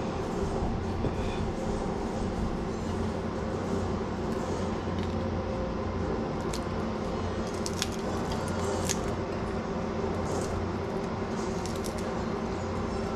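Steady hum and rush of an electric box fan running, with a few faint clicks from handling food on a plate.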